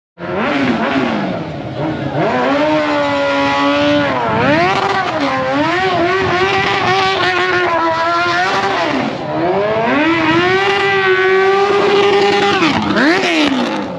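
Sport motorcycle engine revving hard through a burnout, held at high revs with several quick drops and climbs in pitch while the rear tyre spins on the asphalt. The sound starts abruptly.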